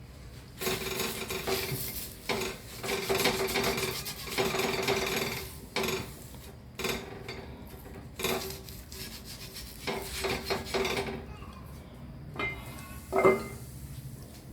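Steel scrubber scouring a metal pan in repeated rasping strokes that come in bursts, the pan giving a steady ringing note under the scraping. A single sharp metallic clank near the end.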